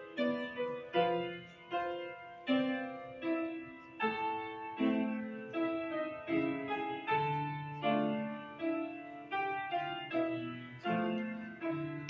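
Grand piano played solo: a slow piece of chords and melody notes at about one or two strikes a second, each note fading after it is struck.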